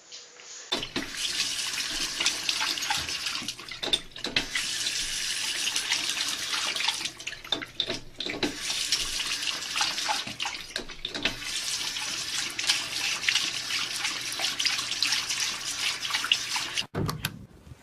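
Running water splashing steadily, with a few short breaks. It starts just under a second in and cuts off sharply near the end.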